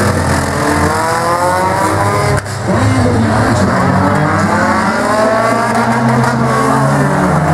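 Several compact race cars' engines revving and running together, their pitches climbing and falling as the cars accelerate and lift. There is a brief dropout about two and a half seconds in.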